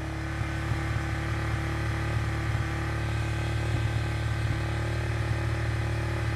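Honda RS150's single-cylinder four-stroke engine held steady at about 5,000 rpm through an aftermarket stock-style exhaust, running at an even drone for a sound-level check. The exhaust measures about 86 dB, within the 99 dB limit.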